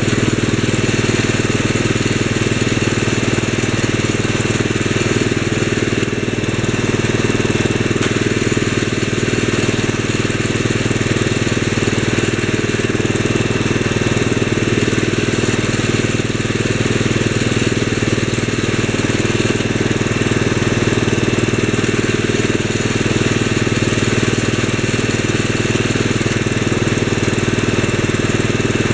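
Eight-horsepower single-cylinder engine of a 1965 Wheel Horse 875 hydrostatic garden tractor running steadily.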